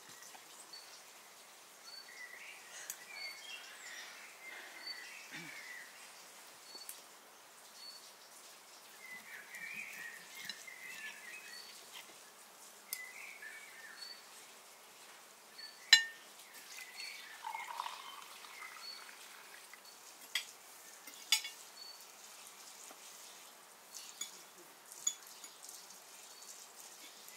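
Birds singing in short bursts of chirping, with a short high chirp repeating every second or so. A few sharp clicks stand out, the loudest about two-thirds of the way through.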